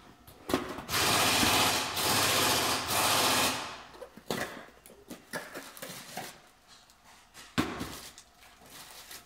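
Hand-held power tool running in two bursts, about a second and then a second and a half, followed by a few scattered knocks and clicks.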